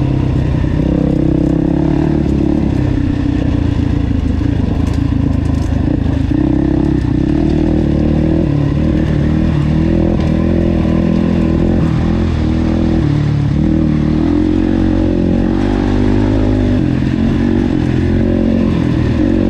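Can-Am DS 450 quad's single-cylinder four-stroke engine running steadily while riding, its note rising and falling with throttle changes.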